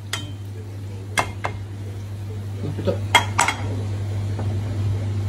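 Cookware clinking as a metal pan and a glass pot lid knock against a soup pot: a few sharp clinks, about a second in and again around three seconds in, over a steady low hum.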